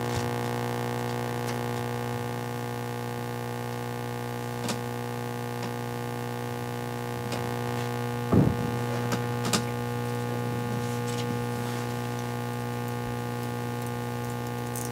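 Steady electrical mains hum from the sound system, with a few faint clicks and a brief knock about eight seconds in.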